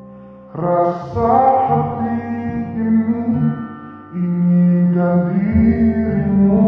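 Background music from a slow song with long held notes. It is quiet at first, comes in about half a second in, dips just before four seconds, and swells again.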